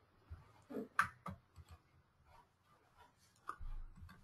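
A few faint computer mouse clicks over quiet room tone, with a brief low rumble near the end.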